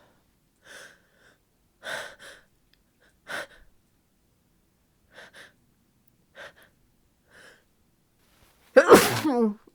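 A woman with a head cold taking short, sharp congested in-breaths, sniffling and gasping about once a second, then sneezing loudly near the end with a voiced, falling tail.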